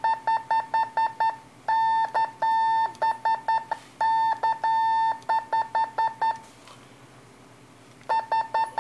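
Morse code sidetone beeps keyed by a single-lever semi-automatic bug key weighted with both weights for slow speed. First comes an even string of automatic dits at about five a second, then Morse characters mixing long dahs and dits. After a pause of about a second and a half, another dit string starts near the end.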